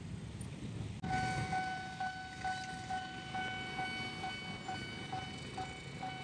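Level-crossing warning bell starting suddenly about a second in: an electronic ringing tone that pulses a little over twice a second, the signal that a train is approaching the crossing. A steady low traffic rumble runs underneath.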